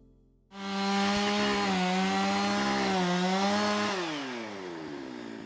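Stihl MS660 two-stroke chainsaw at full throttle cutting wood, its pitch dipping slightly under load. About four seconds in the throttle is released and the engine note falls away toward idle.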